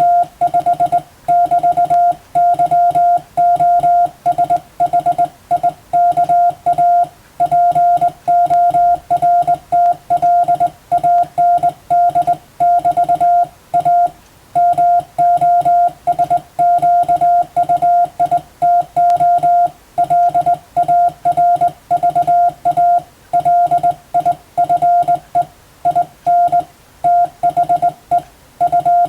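Morse code (CW) being sent as practice: one steady, mid-pitched beep keyed on and off in a continuous run of short dots and longer dashes, with brief gaps between letters and words.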